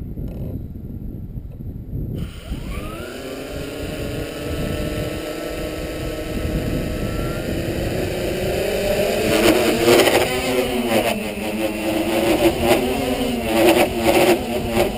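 Walkera Tali H500 hexacopter's six electric motors and propellers spinning up about two seconds in with a rising whine that settles, then getting louder with wavering, unsteady pitch as the craft throttles up and lifts off. The owner calls it a strange motor sound and traces it to a weak joint between the upper and lower body shell at the arms.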